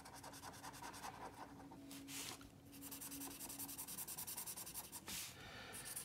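Felt-tip marker rubbing on paper in quick back-and-forth strokes, colouring in a drawing. Faint.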